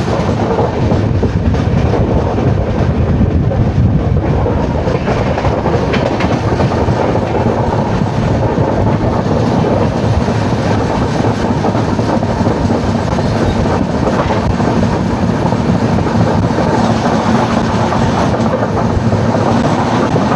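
Moving passenger train heard from an open coach door: steady rumble of wheels on rails with clickety-clack over the rail joints.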